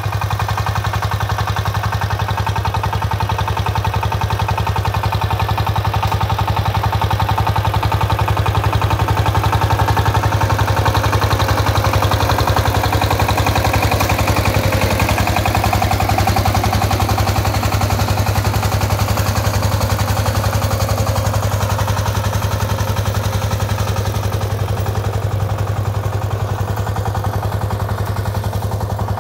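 Two-wheel power tiller's single-cylinder diesel engine running steadily under load, with a rapid, even thudding beat.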